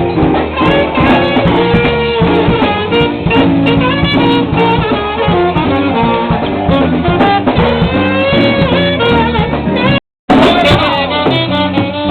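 Live band playing an upbeat tune. The sound cuts out completely for a moment about ten seconds in, then the music comes back.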